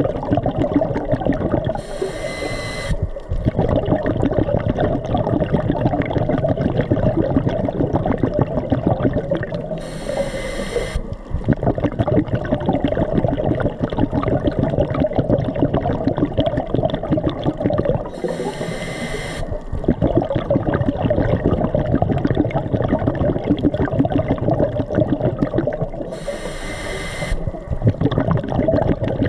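Scuba diver breathing through a regulator underwater: a hiss of inhalation about every eight seconds, four times, with the gurgle of exhaled bubbles filling the time in between.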